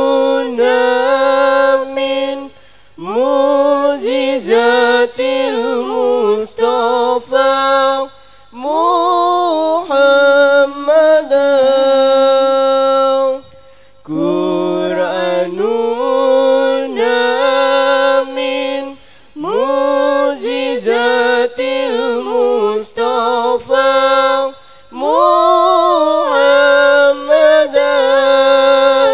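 A young woman chanting a sung Arabic verse a cappella into a microphone. She sings long, ornamented phrases, each a few seconds long, with short breaks between them.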